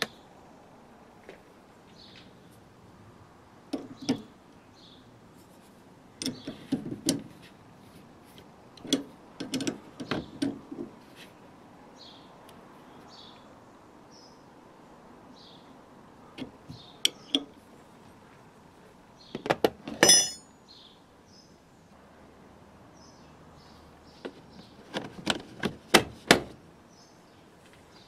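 Metal clinks and clicks of a combination spanner on the top nuts of a Toyota Yaris rear shock absorber's piston rod as the nuts are fitted and tightened, coming in short bursts of a few strikes each. The loudest is a single ringing metal clink about twenty seconds in.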